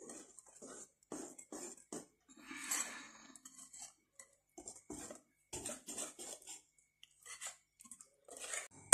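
Stainless-steel wire balloon whisk beating thick chocolate cake batter in a glass bowl, the wires clicking and scraping against the glass in irregular strokes a few times a second, with a longer scrape about three seconds in.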